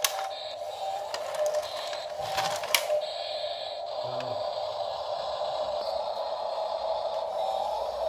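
Small electric motor of a toy RC farm trailer's tipper whining steadily as it lifts the bed, with stones clicking and clattering as they tip out during the first few seconds.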